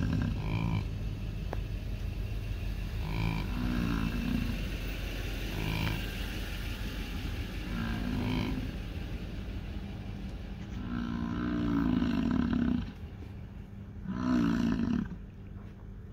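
American bison grunting: a series of short, low, pitched grunts, with two longer and louder grunts near the end.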